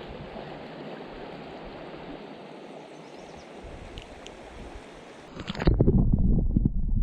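Steady rushing of river water. About five and a half seconds in it gives way abruptly to a much louder low rumbling.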